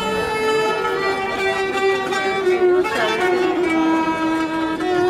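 Two violins and a kanun played together as street music: a Turkish folk tune with the violins carrying the melody in long held notes that slide from one pitch to the next.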